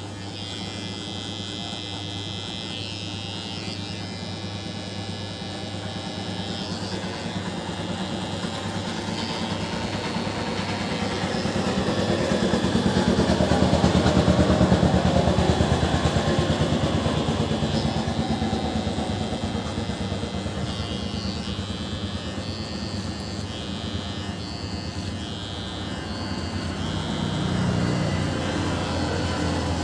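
Electric hair clippers buzzing steadily as they cut short hair along the side of the head. The hum grows louder about halfway through, while the clipper works close to the ear, then eases off.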